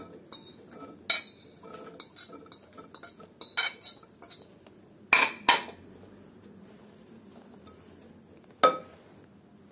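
A metal spoon clinking and scraping against a plate and a cut-glass bowl as boiled peas are pushed off the plate into the bowl: a quick string of light clinks, then two louder clinks about five seconds in and one more near the end.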